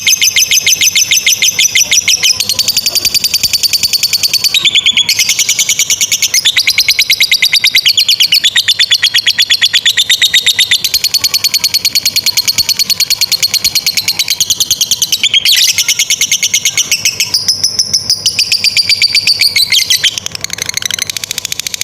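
Lovebird singing the long 'ngekek' chatter: a rapid, high trill of repeated pulses kept up almost without pause, broken briefly about five and fifteen seconds in and quieter near the end.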